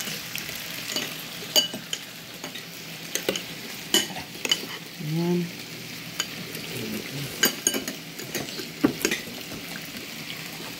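Meat sizzling on an electric Korean barbecue grill and hot pot, a steady high hiss, with spoons and forks clicking against ceramic bowls. A brief murmur about five seconds in.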